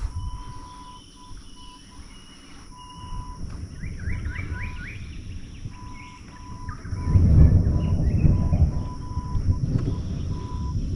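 Birds chirping in short rising calls about four seconds in, over a low, gusty rumble that swells much louder about seven seconds in.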